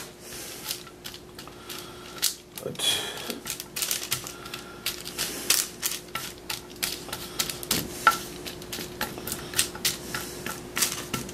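Roasted mixed nuts clicking and clattering as a wooden spatula pushes and spreads them across a paper-lined ceramic baking dish, with the spatula scraping the dish: a quick, irregular run of clicks.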